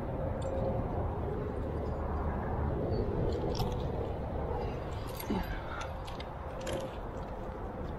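Climbing gear clinking lightly: a scattering of short metal clicks and clinks about three to seven seconds in, over a steady low rumble.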